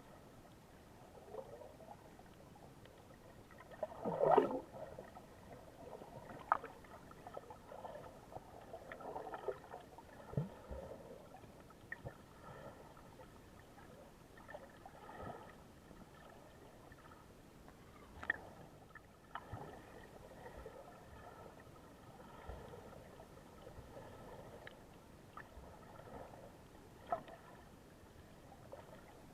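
Sea water lapping and splashing in small irregular washes, the loudest splash about four seconds in.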